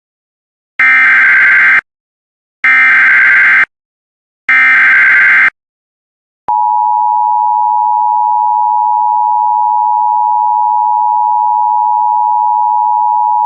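Emergency Alert System SAME header: three loud bursts of digital data tones, each about a second long with short silences between, followed about six and a half seconds in by the steady two-tone EAS attention signal, which holds to the end. It is the lead-in announcing a National Weather Service flash flood warning.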